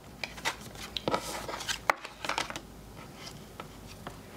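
Game cards being picked up, slid and laid down on a tabletop: a run of light taps and card slides in the first two and a half seconds, then quieter.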